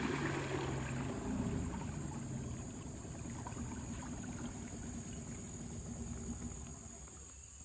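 Small river boat's motor running low and fading away as the boat slows and glides in toward the bank. A thin, steady high tone runs over it.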